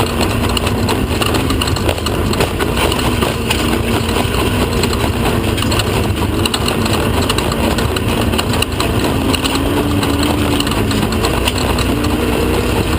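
Off-road race vehicle's engine running steadily under way, its pitch wavering slightly and rising a little near the end, with many short clicks and knocks over the loud drone.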